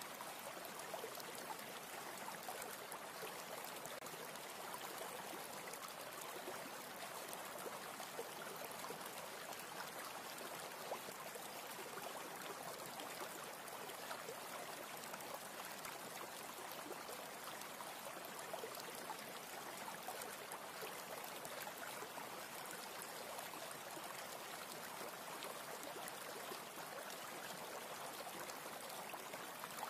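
Steady, even hiss like running water.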